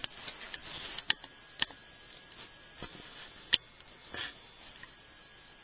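Handling noise from a handheld camera: four sharp clicks and soft rustles over a faint, steady high whine.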